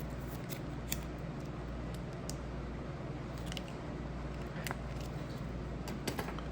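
Baseball trading cards being handled and sorted by hand: scattered light clicks and soft rustles of card stock, over a steady low hum.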